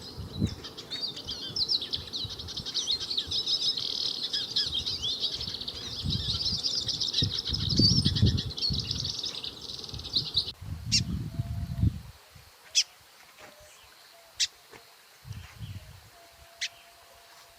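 A crowd of small birds chirping busily, many rapid calls overlapping, over low rumbling. It cuts off abruptly about ten seconds in, leaving only a few sharp single chirps.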